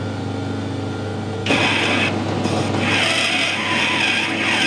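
Metal lathe turning slowly with a steady motor hum. About one and a half seconds in, a boring tool starts cutting a coarse spiral grease groove inside a brass bush, adding a louder scraping cutting noise that drops out briefly and comes back.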